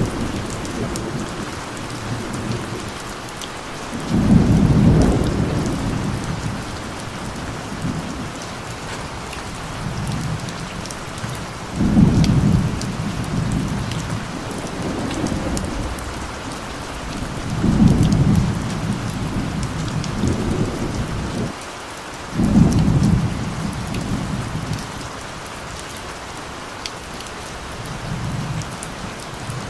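Steady rain falling with a constant hiss, and rolling thunder that swells up about four times, each roll rising suddenly and dying away over a second or two.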